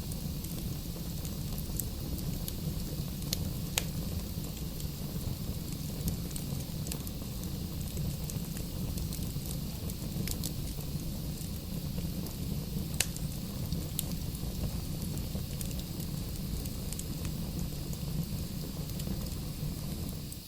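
Wood fire burning in a fireplace: a steady low rumble of flames with the crackling of burning logs, and a few sharp pops scattered through, the loudest about four and thirteen seconds in.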